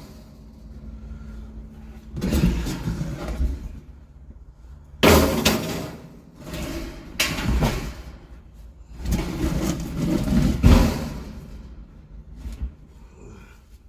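A series of irregular bangs and clattering thuds, a few seconds apart, some in quick clusters, over a faint steady hum that stops about two seconds in.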